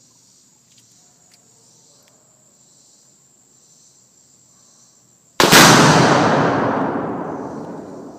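A two-pound charge of Tannerite set off by a rifle shot: one sudden, very loud blast about five seconds in, followed by a long rumble that dies away over about three seconds. Crickets chirr steadily before it.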